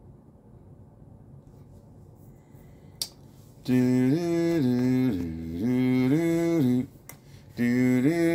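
A man humming a wordless tune, with held notes stepping up and down in pitch, starting about three and a half seconds in, breaking off briefly and resuming with a rising note near the end. A sharp click comes just before the humming starts and another in the short pause.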